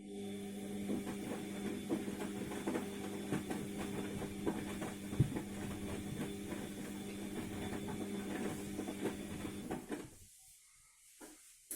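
ATLANT front-loading washing machine turning its drum during the wash: a steady motor hum with many small clicks and rattles, stopping about ten seconds in as the drum pauses between turns.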